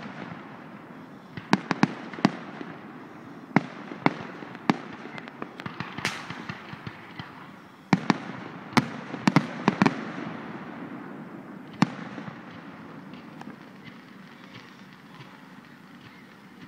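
Aerial firework shells bursting in sharp bangs, some in quick clusters, with crackling between them; the bangs thin out over the last few seconds.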